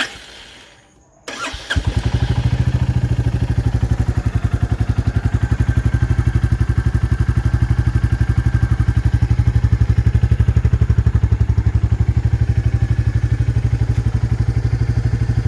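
Royal Enfield Classic 350's single-cylinder four-stroke engine starting about a second and a half in, then idling steadily through the stock silencer with a deep, even run of exhaust pulses.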